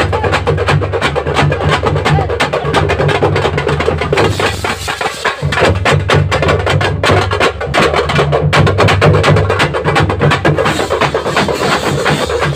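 Several parai frame drums beaten together with sticks in a fast, loud rhythm of dense sharp strikes, dipping briefly about five seconds in.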